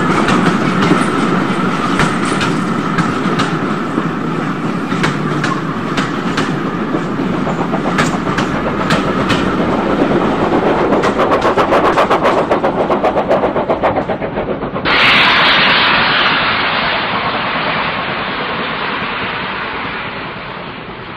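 Long HO-scale model freight train of hopper wagons running on model track: a steady rumble with a rapid clickety-clack of the wagon wheels over rail joints. About fifteen seconds in, the train sound cuts off abruptly and a steady hiss takes over, then fades.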